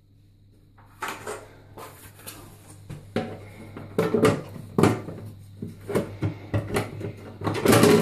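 Irregular knocks, clicks and scrapes of plastic and wooden parts being handled as the concealed cistern and its wooden cabinet are put back together. It is near quiet for the first second, then the knocks come more often and louder toward the end.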